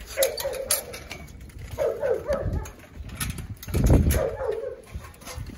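A dog whining in three short, wavering bouts. A louder low thump comes about four seconds in.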